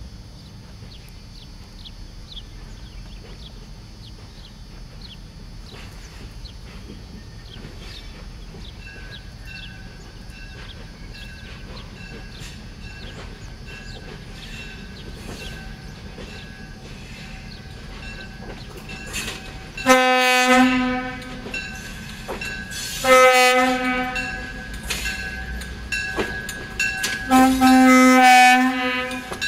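Scenic passenger train approaching with a low rumble and faint clicking, then its horn sounds three times: a blast of about a second, a second short blast, and a longer blast near the end as the train draws level.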